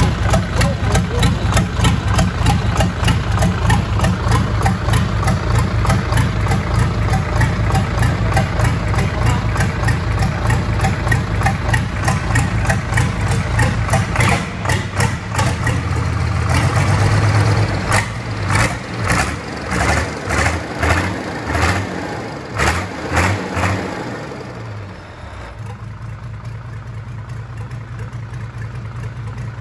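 MAN D0826 inline-six diesel engine running on a workshop stand on its first start after a full overhaul. It runs steadily at first; about halfway through it turns uneven for roughly ten seconds, with a string of surges and dips, and near the end it settles to a quieter, steady idle.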